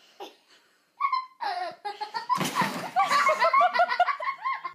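People laughing hard in quick, bouncing bursts, starting about a second in, with a short rush of noise near the middle.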